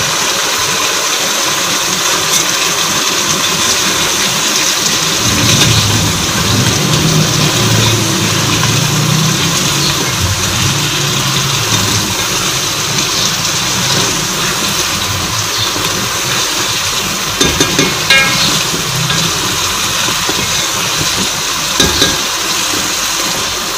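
Chicken korma masala and chicken sizzling as they fry in a pot and are stirred, with a few sharp spoon knocks against the pot near the end.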